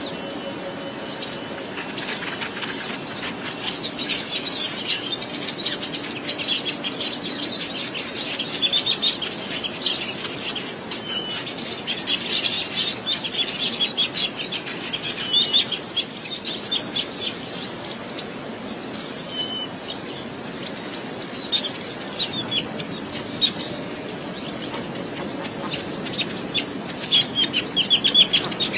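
Many small birds chirping at once: a dense chatter of short, high, overlapping calls, busiest in the first half and swelling again near the end.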